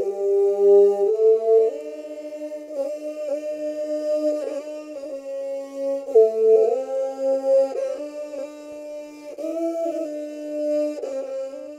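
Background music: a slow melody of long held notes over sustained lower notes, changing pitch every second or so.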